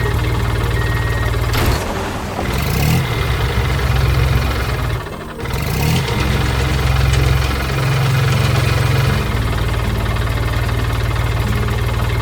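Machine engine idling with a steady low drone. Its note changes and rises about two seconds in, dips briefly about five seconds in, and settles back to a steady idle about nine seconds in.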